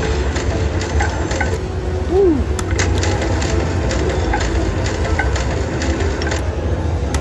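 Cash Machine slot machine spinning its reels, with a run of sharp clicks as the reels turn and stop, and a short rising-and-falling electronic tone about two seconds in, over a steady casino-floor hum.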